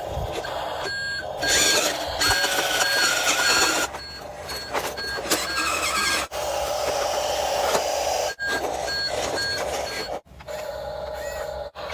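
A vehicle reversing alarm beeping steadily, about two beeps a second, in several runs over mechanical running noise. The sound breaks off abruptly a few times.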